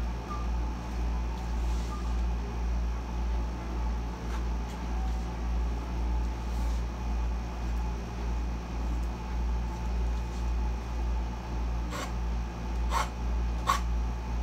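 Air conditioner running at full blast: a steady low hum that throbs evenly, with a faint hiss over it. Three short clicks come near the end.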